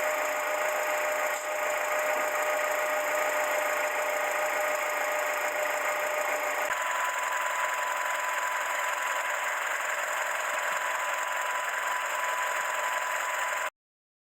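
Honda Step WGN engine running steadily with a thin constant whine over a hiss-like mechanical noise. About seven seconds in, the sound changes abruptly and the whine jumps higher. It stops dead near the end.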